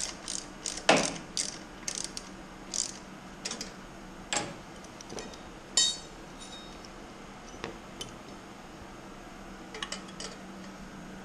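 Socket ratchet clicking in short runs as a bolt is backed out, followed by scattered clicks and clinks of metal hand tools. The loudest, ringing clink comes about six seconds in, as a tool is set down.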